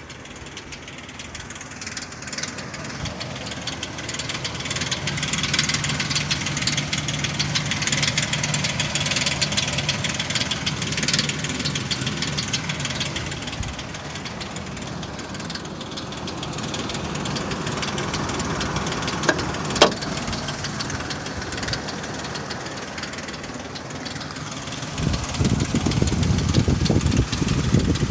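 2003 Ford Explorer's 4.0 SOHC V6 running hot with a fast rattle, a fault that the owner says comes on at idle when warm, goes away near 1000 rpm and returns around 1500 rpm. The engine sound swells and eases a few times, with one sharp click about twenty seconds in and a heavier low rumble near the end.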